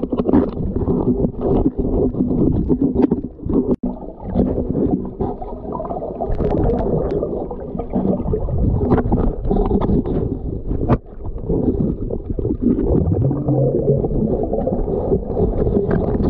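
Muffled underwater rumbling and gurgling of water moving around a camera in a waterproof housing, with scattered small clicks and knocks.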